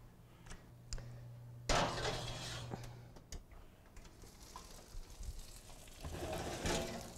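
Quiet kitchen handling at a wall oven: the oven door being opened and its metal rack pulled out, with a few light clicks and knocks. A low hum runs underneath and stops about three seconds in.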